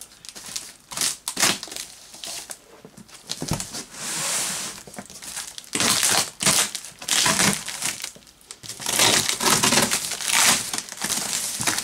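Packing tape and cardboard of a large shipping box being cut and pulled open: irregular crackling, crinkling and scraping with a few knocks.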